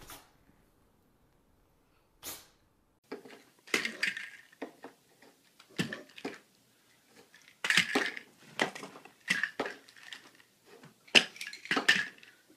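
Small cups and containers clinking and knocking on a dresser top: a single tap about two seconds in, then irregular clusters of short, sharp clinks.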